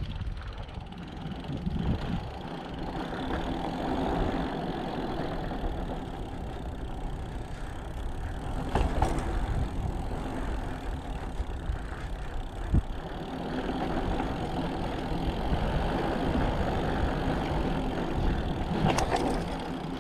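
Mountain bike riding noise: a steady rumble of wind on the microphone and tyres rolling over rock, with a few sharp knocks.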